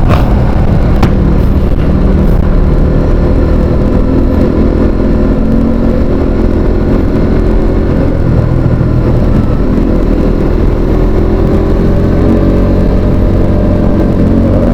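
Vehicle engine running on the road with steady road and wind noise, its pitch rising and falling gently as the speed changes. There is a short sharp click about a second in.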